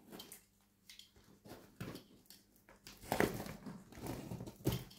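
Packing tape and cardboard being cut and torn open on a heavily taped parcel: irregular scraping, ripping and rustling, loudest a little after three seconds in and again near the end.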